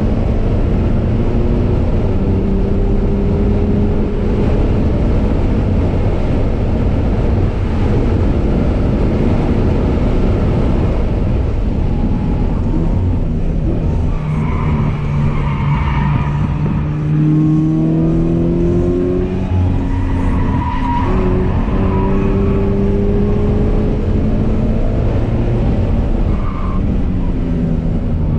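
2017 Toyota 86's 2.0-litre flat-four engine heard from inside the cabin under hard track driving. The engine note climbs in pitch again and again as it revs out, then drops back at gear changes and lifts.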